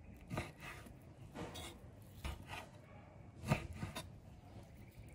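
Chef's knife cutting raw beef and knocking on a wooden cutting board: a series of irregular chops, the loudest about three and a half seconds in.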